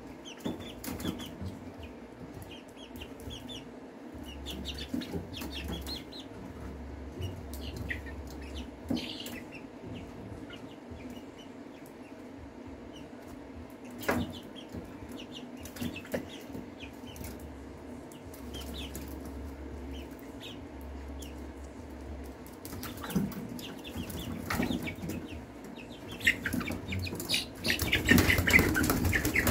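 Young chickens, about eight weeks old, peeping in short high calls while their wings flap as they flutter on the rim of a steel stock tank, with a sharp knock partway through; the loudest flurry of flapping comes near the end.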